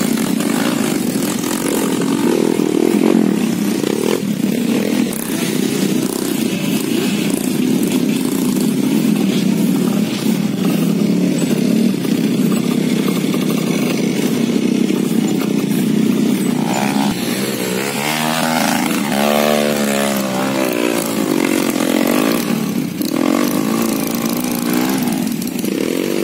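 Trail motorcycle engines running under hard load up a steep dirt climb. About two-thirds of the way through, one engine revs up and down rapidly several times.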